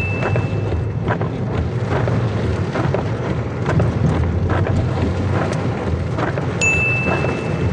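Heavy rain falling, with wind buffeting the microphone as a steady low rumble and scattered sharp drop ticks. A high steady tone sounds for about a second near the end.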